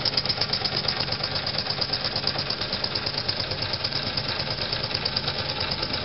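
J. Falk 145 toy steam engine running steadily, its cylinder exhausting in rapid hissing chuffs, about five a second.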